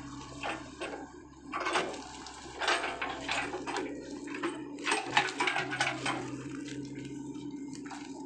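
Irregular splashing steps through shallow floodwater, loudest in a cluster between about two and six seconds in, over the steady hum of an excavator's diesel engine running.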